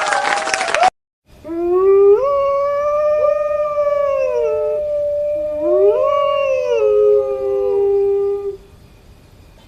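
Wolves howling: long, smooth howls that rise, hold and slide down in pitch, with two voices overlapping. One howl cuts off about a second in, and after a brief gap a new round of howling begins, then fades out near the end.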